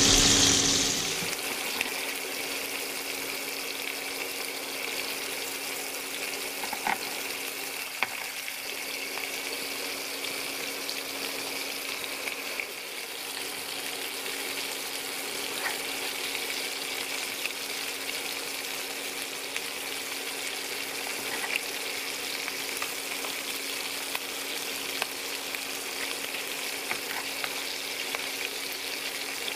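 Bacon-wrapped eye fillet steaks sizzling in butter in a frying pan, with small pops of spattering fat now and then. It is louder for the first second while butter is spooned over the steaks, then settles to a steady sizzle over a faint low hum.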